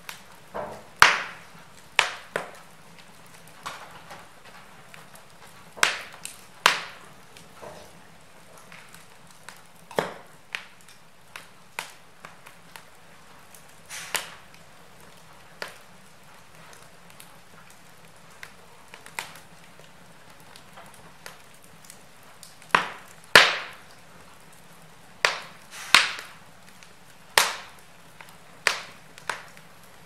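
Wood fire burning in a fireplace, crackling with sharp, irregular pops over a faint steady hiss. The pops come in uneven clusters, a few of them loud, with a quieter stretch past the middle.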